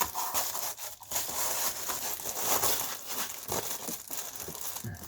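Reflectix foil-faced bubble insulation crinkling irregularly as it is handled and wrapped around an HVAC duct boot.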